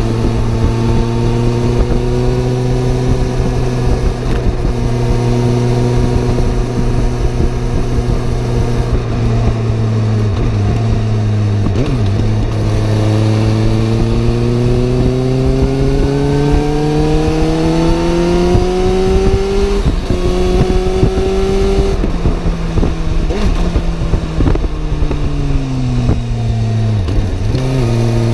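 Suzuki GSR750's inline-four engine running on the road, with a noisy rush under it. It holds steady revs at first, then the revs climb steadily for several seconds, hold briefly, fall away and pick up again near the end.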